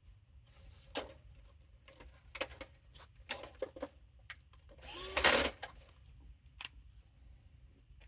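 Small electric screwdriver running in several short bursts, driving screws back into a DJ mixer's casing; the longest and loudest burst comes about five seconds in.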